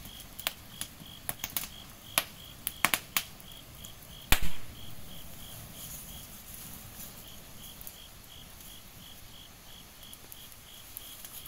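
Fire burning in leaves and bamboo around a bee nest, with scattered sharp cracking pops, the loudest about four seconds in. An insect chirps steadily in the background at about four chirps a second.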